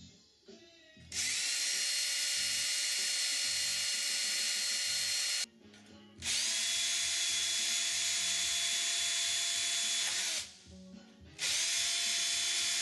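Ridgid cordless drill with a number 40 bit drilling pilot holes through a metal rudder hinge, guided by the holes of a spar flange. It runs steadily for about four seconds at a time, speeding up at each start and winding down at each stop: two full holes, and a third starting near the end.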